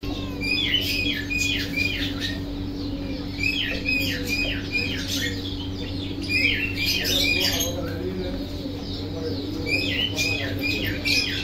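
Birds chirping and squawking in short, rapid groups of calls that come back every few seconds, over a steady low hum.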